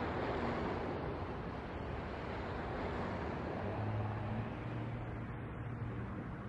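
Steady rumbling outdoor noise, with a low droning tone that comes in a little past halfway and fades out near the end.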